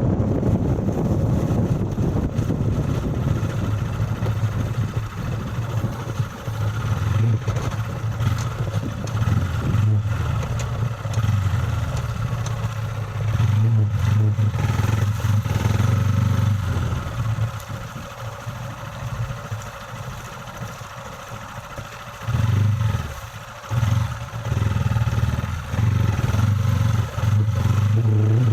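Motor vehicle engine driving on a rough, muddy off-road track, its note swelling and dropping with the throttle. It eases off for several seconds past the middle, then picks up again in short revving surges.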